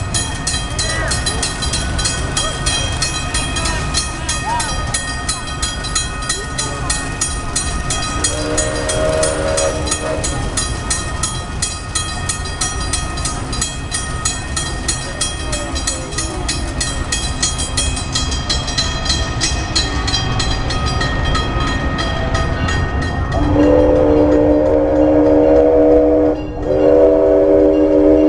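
Railroad crossing signal bell ringing in rapid, even strokes, fading out after about 18 seconds. A steam locomotive's whistle gives a short blast about 8 seconds in, then near the end sounds a loud chord of several tones in two long blasts with a brief break between them.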